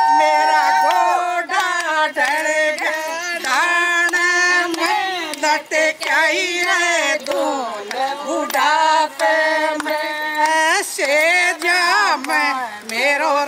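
A woman's voice singing a melody, with held notes and pitch that bends and glides between them.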